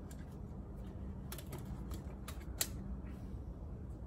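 A few scattered light clicks and taps of a small titanium cook pot and its contents being handled, the sharpest a little past halfway. A steady low background hum runs underneath.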